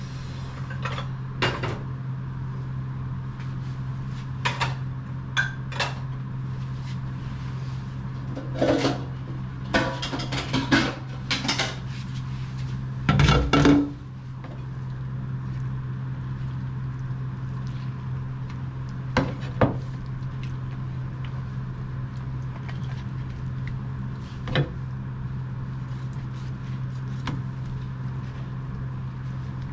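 Kitchen knife and a rockfish being handled on a wooden cutting board at a steel sink during gutting: scattered knocks, scrapes and clinks, the loudest cluster about thirteen seconds in. A steady low hum runs underneath.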